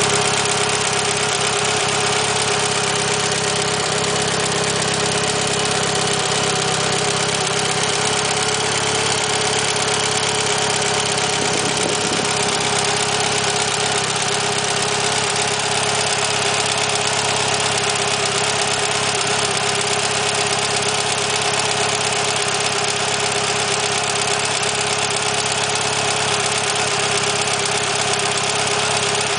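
Mitsubishi Lancer Evolution IX's four-cylinder engine, fitted with Kelford 272 camshafts and Supertech beehive valve springs, idling steadily with a loud ticking from the valvetrain, which the owner takes for valve or lifter tick.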